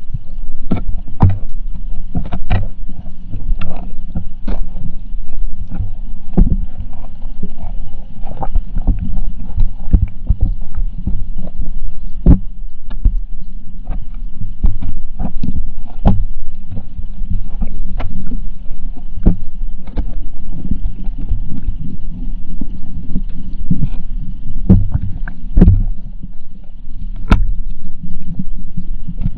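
Underwater sound picked up by a GoPro in its waterproof housing: a loud, muffled low rumble with irregular sharp clicks and knocks, and a faint steady high tone.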